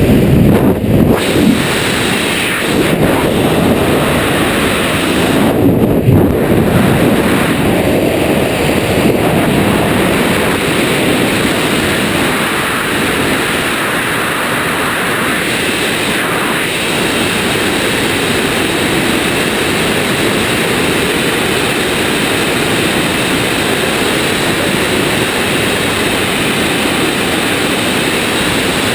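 Loud wind rushing over a helmet camera's microphone in wingsuit freefall, buffeting for the first few seconds and then a steady roar.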